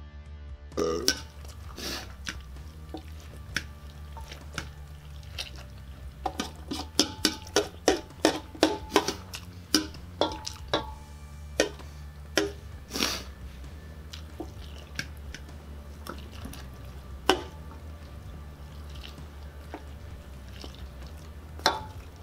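Wet, sauce-coated pasta being slurped and squelched as it is eaten by hand from a large stainless steel bowl, with scattered sharp clicks and knocks against the metal bowl. The smacks come thickest in a quick run between about six and eleven seconds in, over a steady low hum.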